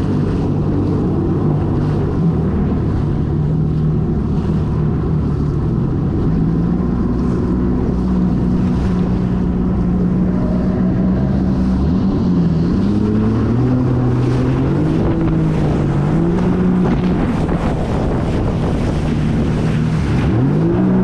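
Jet ski engine running under way, its pitch rising and falling with the throttle and climbing sharply near the end, with wind buffeting the microphone.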